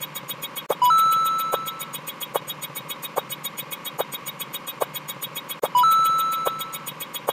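Super Mario Bros. NES coin sound played twice, about five seconds apart: a short blip jumping up to a higher ringing note that fades. Between them run a rapid steady ticking and short blips just under a second apart.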